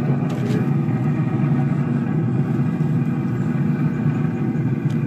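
Steady low motor hum from a Traeger pellet grill's fan running while the grill is hot, with a few soft taps near the start and the end as bacon-wrapped chicken is set on the grill mat.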